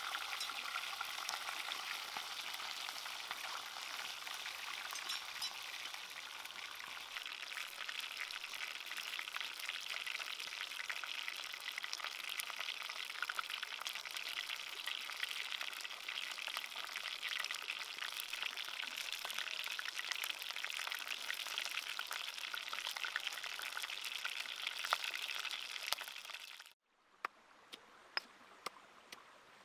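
Whole red fish frying in hot oil in a pan, a steady sizzle full of fine crackles. About 27 seconds in it cuts off, and a few sharp knocks follow as a pestle pounds chilies in a stone mortar.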